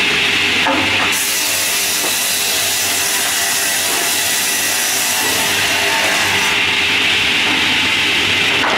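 A pass-through slab-processing machine's multiple circular saw blades running steadily and ripping a wood slab fed through it, with music playing over it.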